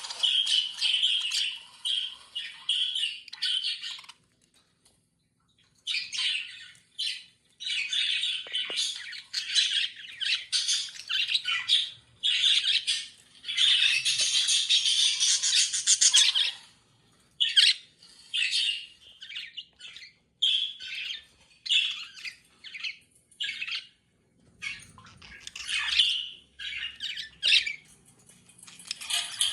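Budgerigars chattering and squawking in quick, dense runs of high chirps, broken by a couple of brief pauses.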